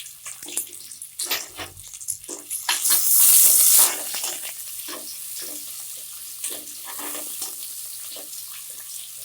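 Sliced onions sizzling in hot oil and ghee in a pressure cooker, with a loud surge of hissing about three seconds in. Irregular scrapes and knocks of a spoon against the pot come as the onions are stirred.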